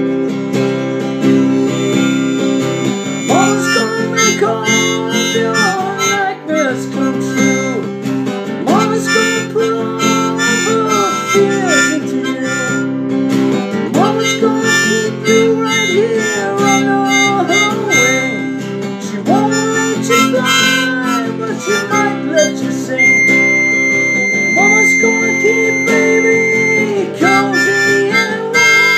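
Harmonica played over a strummed acoustic guitar, the harmonica's phrases bending and sliding in pitch.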